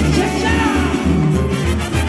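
Live Latin dance band music played loud over a stage sound system, with a steady, pulsing bass beat.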